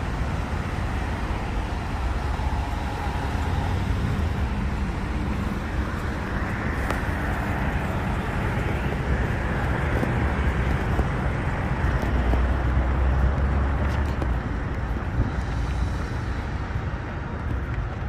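Steady road traffic noise with a heavy low rumble.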